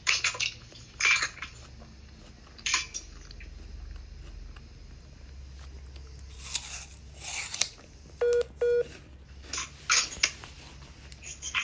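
Two short electronic beeps about eight seconds in: the video-call app's tone as the call drops into reconnecting. Short, scattered crunching and rustling noises come between them and the beeps.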